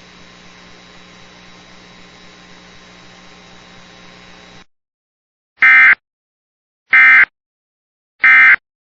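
Steady static hiss with mains hum that cuts off about four and a half seconds in, followed by three short, loud data bursts about 1.3 s apart: the Emergency Alert System's end-of-message code marking the close of the alert.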